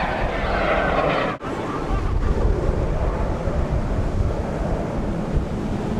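Wind buffeting the microphone over a steady rush like surf. The sound drops out for an instant about a second and a half in.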